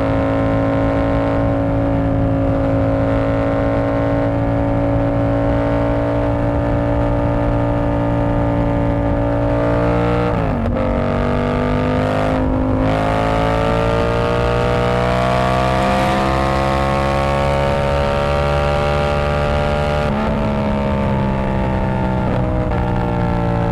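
Yamaha R7's 689 cc parallel-twin engine under way through a TOCE exhaust with its dB killer removed. It holds steady revs, drops in pitch suddenly about ten seconds in, then climbs, and jumps back up about twenty seconds in before the revs fall away.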